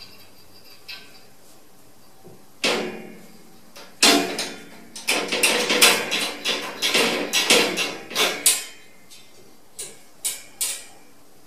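Metal cage door and its sliding bolt latch rattling and clanking as a cat paws and pulls at the latch: one clank about two and a half seconds in, a rapid run of clanks for about four seconds, then a few more near the end.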